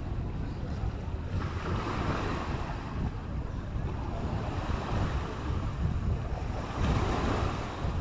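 Small waves washing up a sandy shore, the wash swelling about a second and a half in and again near the end, with wind buffeting the microphone.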